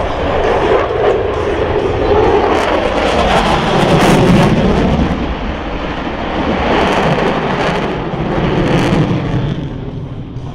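Jet noise from Blue Angels F/A-18E/F Super Hornets and their twin General Electric F414 turbofans passing overhead. It is loud and rushing, swelling twice and easing off near the end.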